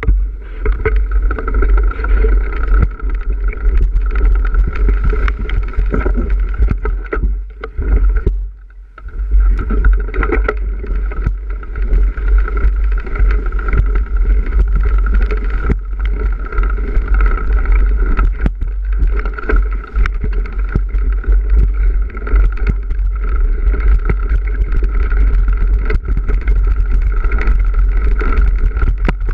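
Wind buffeting the microphone of a camera riding on a bicycle, over the constant knocks and rattles of the bike bouncing across rough grassy ground. It eases off briefly about eight seconds in.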